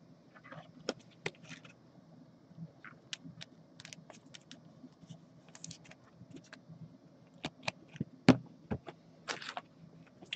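Light, irregular clicks and short scrapes of trading cards and a rigid clear plastic card holder being handled, with a sharper click about eight seconds in.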